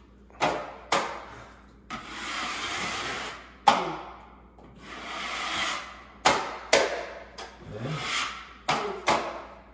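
A drywall knife or scraper working a drywall corner seam: long scraping strokes alternating with sharp taps and clacks of the tool against the wall.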